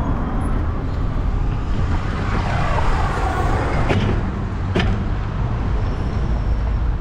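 Wind buffeting the bike-mounted microphone and the bicycle's tyres rumbling over pavement, with car traffic passing on the street. Two sharp knocks, about four and five seconds in, as the bike rolls down a kerb ramp.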